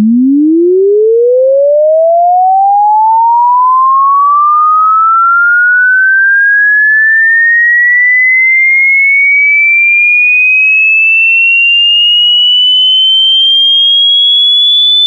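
A single pure electronic tone at steady loudness, gliding smoothly upward in pitch the whole time from a low hum to a high whistle: a sine-wave frequency sweep.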